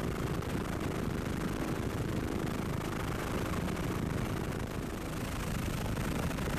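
Steady engine and rotor noise of a helicopter, heard from inside the aircraft, a dense unbroken rumble.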